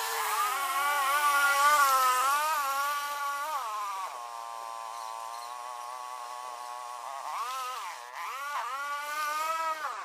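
Small multirotor drone's propellers whining while it hovers, the pitch wavering up and down as the motors adjust, with two quick dips and recoveries near the end.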